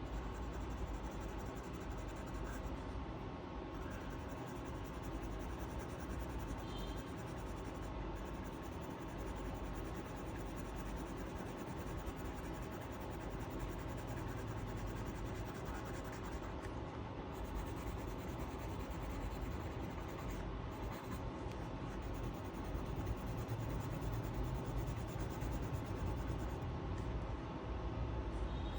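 A colouring tool scratching steadily on paper as a picture is coloured in.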